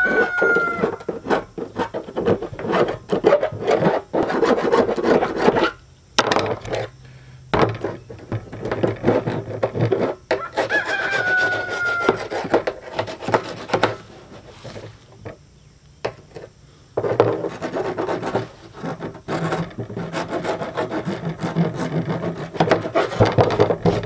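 Metal files rasping back and forth around the edge of a hole cut in a plastic barrel, smoothing off its jagged edge: first a round file, then the file of a Leatherman multitool. The strokes come in runs with short pauses between them.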